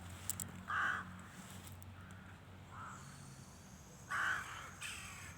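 Crow cawing: single caws, a loud one about a second in, a fainter one near three seconds and another loud one just past four seconds.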